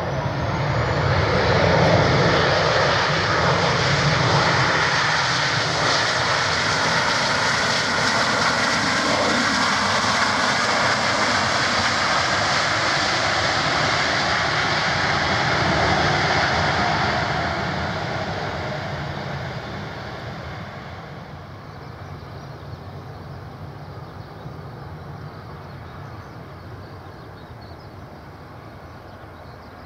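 Boeing 737-800's CFM56-7B turbofan engines at high power in reverse thrust during the landing rollout. The loud jet noise builds within the first couple of seconds, holds for about fifteen seconds, then dies away over several seconds as the engines spool down and the aircraft slows.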